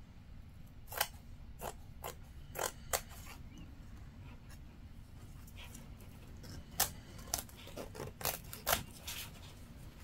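Scissors snipping through a piece of fabric: a series of separate snips in two runs, the first about a second in, the second from about six and a half seconds.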